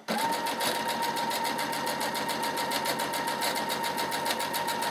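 Domestic electric sewing machine sewing a straight seam at steady speed: a constant motor whine with a fast, even needle clatter. It starts just after the beginning and stops near the end.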